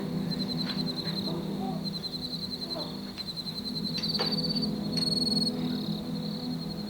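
Insects chirping in a steady high trill, with brief faster pulses about four and five seconds in, over a steady low hum as picked up by a doorbell camera's microphone; a few faint clicks.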